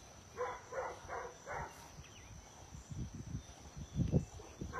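A steady high insect trill over quiet outdoor ambience. About half a second in come four quick, evenly spaced puffing sounds, and low bumps and rustles follow in the second half.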